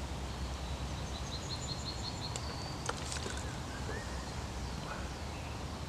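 A songbird singing a quick run of about eight short high notes, ending on a brief held note, over a steady low background rumble; one sharp click about three seconds in.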